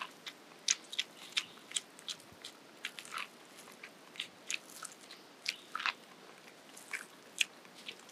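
Biting and chewing kernels off a grilled corn cob: a string of short, crisp crunches coming irregularly, a few a second.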